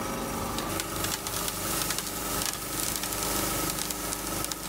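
Liquid nitrogen being poured from a large dewar into a smaller dewar, hissing and crackling as it boils off on contact with the warm vessel. Underneath is the steady hum of the rotary roughing vacuum pump running.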